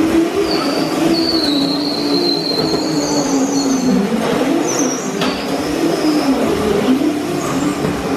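Electric Crazy Cart drift karts running on a concrete floor: a motor whine that wavers up and down in pitch with speed, and high squeals from the wheels sliding as they drift.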